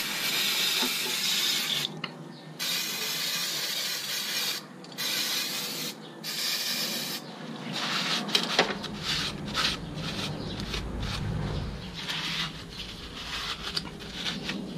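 Aerosol brake cleaner hissing out of the can in about four bursts onto a drum-brake backing plate. After about seven seconds it gives way to the scratchy rubbing of a paper towel wiping the plate clean of dust and debris.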